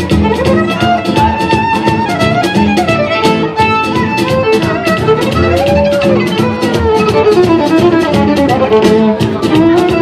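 Amplified violin playing a melody with slides between notes and vibrato, over a backing track with a steady, quick beat.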